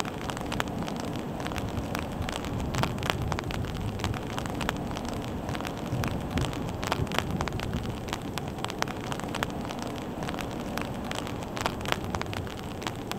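Steady rain falling, with many sharp, irregular drop impacts ticking close by over a constant hiss of rainfall.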